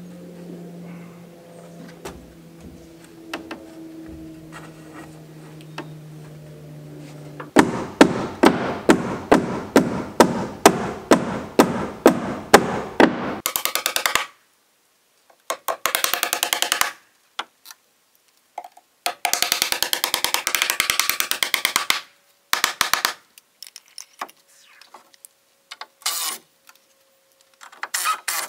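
Background music: sustained tones, then a steady drum beat at about two beats a second that breaks off and restarts several times.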